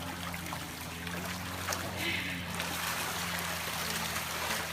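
Running water with a steady low hum underneath and a short hiss about two seconds in.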